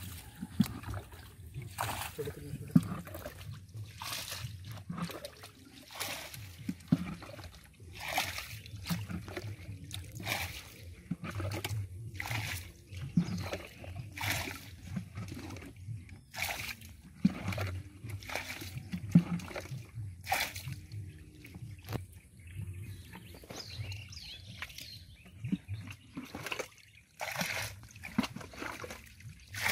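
Water trickling down a shallow muddy ditch, with many irregular small splashes and sloshes as taki fish (snakeheads) thrash in the shallow water.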